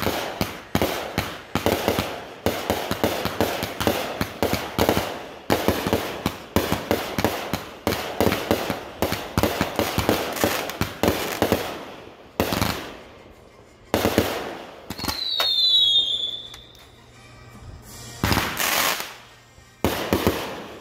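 Aerial fireworks going off: a rapid string of cracking bursts for about twelve seconds, then single booms a second or two apart, with a short whistle falling slightly in pitch about midway.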